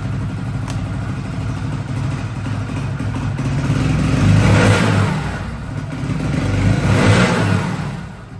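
Hero HF Deluxe BS6 motorcycle's single-cylinder engine running at idle and revved up twice with the throttle, about four and a half seconds in and again about seven seconds in, each time settling back.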